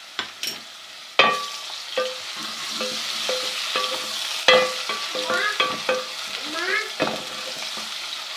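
Onions and ginger-garlic paste sizzling in hot ghee in a cooking pot, stirred with a spoon that knocks and scrapes against the pot now and then. The sizzle grows louder about a second in.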